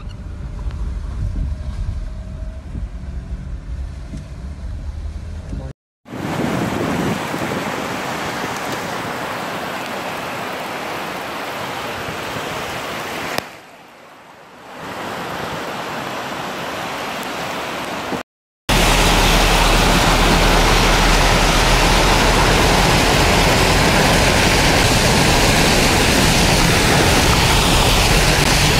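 Cars driving through deep flood water: a steady rush of water thrown up by the tyres over engine and road noise. The sound breaks off briefly twice, about 6 and 18 seconds in. The last stretch is the loudest, a heavy spray of flood water sheeting up from the car.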